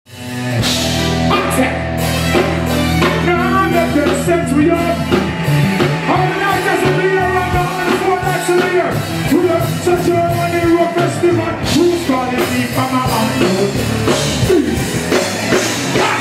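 Live reggae-dancehall band music with drums and guitar, a voice singing over it. It starts abruptly.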